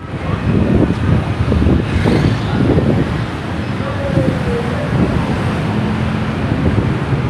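Street ambience: traffic noise and wind on the microphone, with indistinct voices.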